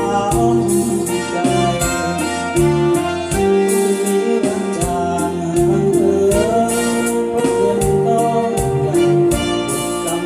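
Music: a steel-string acoustic guitar played along with a full band backing track, with a beat and a held melody line running throughout.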